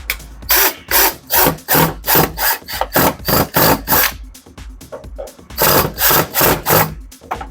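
Screwdriver driving screws into the washer door's plastic cover, in a run of short rasping bursts about two to three a second, with a brief pause about two-thirds of the way through.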